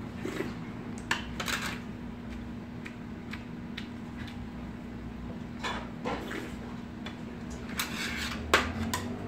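Metal spoon and chopsticks clinking now and then against ceramic side-dish bowls and a metal tray during a meal, the loudest clink near the end. A steady low hum runs underneath.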